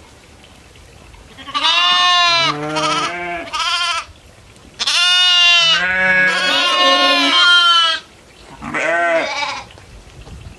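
Goats bleating: three bouts of loud, wavering bleats, the middle one the longest, with quiet gaps between them.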